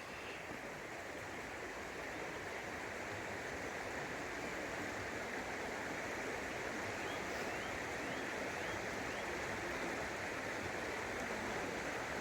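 Running water of a stream by the falls, a steady even rush.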